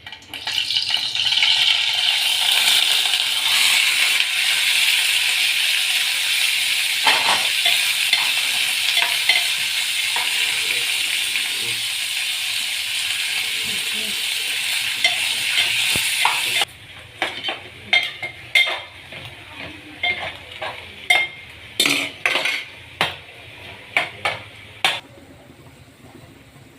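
Food frying in a pan with a loud, steady sizzle that cuts off suddenly about two-thirds of the way through. After that, a utensil scrapes and taps against the pan in a run of short, sharp strokes.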